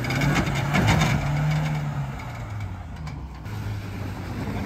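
Off-road 4x4 engine running under load as a Maruti Gypsy crawls over a rutted, muddy and rocky track. About two seconds in the engine note drops to a lower, quieter hum.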